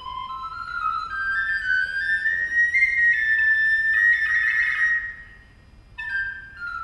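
Wooden recorder playing a solo run that climbs note by note, with a quick fluttering trill near the top. After a brief breath pause it steps back down in a descending run.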